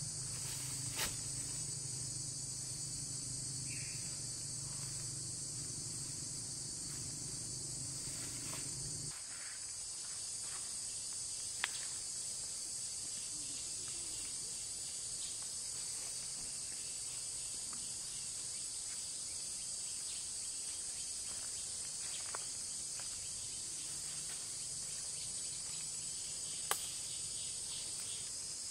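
Steady, high-pitched chorus of forest insects droning without a break. A few isolated sharp clicks stand out, and a low hum underneath stops abruptly about nine seconds in.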